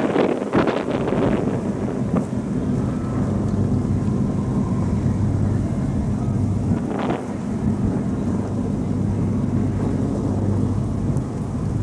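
Engines of high-speed passenger boats running toward the shore, a steady low drone, with wind buffeting the microphone, heaviest in the first second or two.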